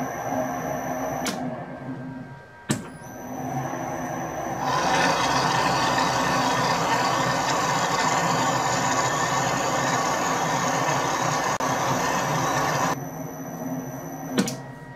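Metal lathe running while a boring bar cuts an internal Acme thread in a spinning brass nut. There is a steady machine hum, a louder, noisier stretch of about eight seconds in the middle, and sharp clicks near the start and near the end.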